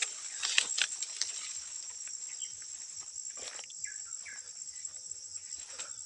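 Insects buzzing in a steady, high-pitched chorus, with scattered rustles and crackles of footsteps through grass and bamboo leaves.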